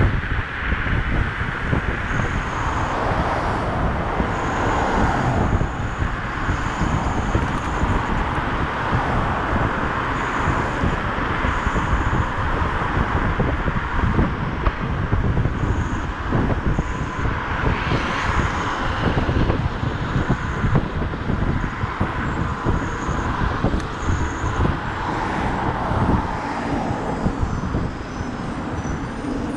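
Wind buffeting the microphone and road noise from riding a Dualtron electric scooter at speed through city traffic, a steady rushing rumble, with short faint high beeps now and then.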